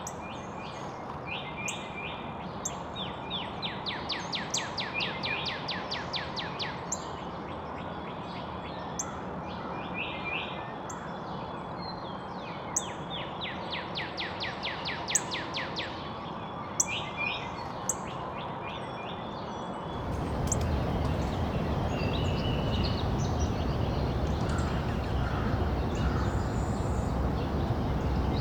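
Backyard songbirds singing and chirping. Twice a bird gives a rapid trill of sharp, quickly repeated notes lasting about three seconds. Steady outdoor background noise underlies it and gets suddenly louder about two-thirds of the way through.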